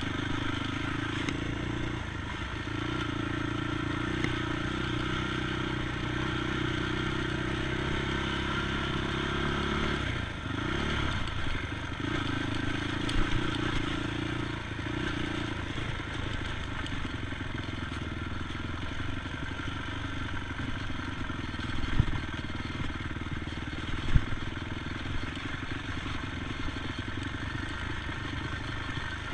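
ATV engine running at steady revs, with a brief drop and rise in engine pitch about ten seconds in, over a rough rattling noise. Two sharp knocks come near the end.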